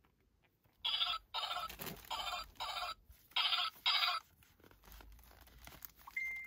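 Baby doll's built-in sound chip playing six short baby-voice sounds in three pairs, followed near the end by one steady beep.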